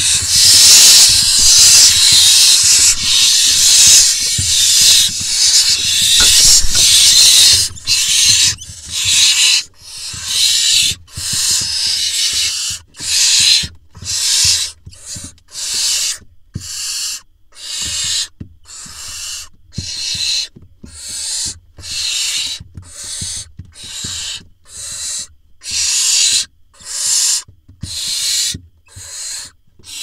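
Barn owl nestlings giving their hissing, snore-like begging calls. For the first several seconds the hisses overlap into one dense, loud hiss, then they come as separate hisses at about four every three seconds.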